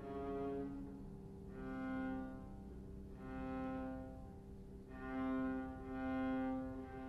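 Viola bowing a slow phrase of long held notes, each swelling and fading, about five in all.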